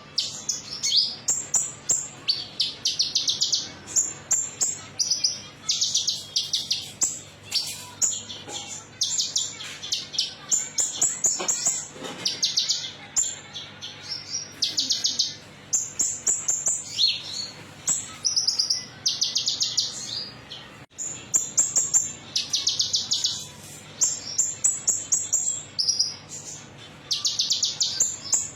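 Kolibri ninja (konin), a small sunbird, singing high, rapid twittering phrases of about a second each, repeated with short pauses, as a lure recording to prompt caged birds to sing.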